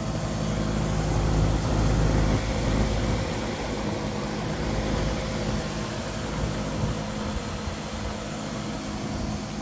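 Outdoor central air conditioner condenser unit running: a steady hum with fan noise, the low rumble heavier in the first few seconds.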